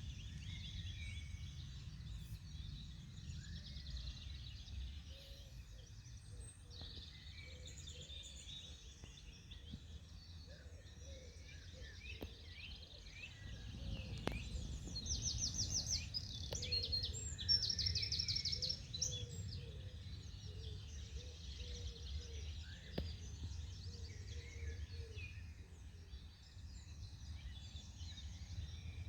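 Several songbirds singing and calling together in a morning chorus, with rapid high trills standing out about halfway through, over a steady low rumble.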